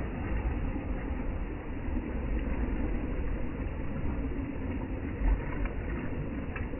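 Churning, foamy water sloshing against a concrete wall, under a steady low rumble, with a brief low thump about five seconds in.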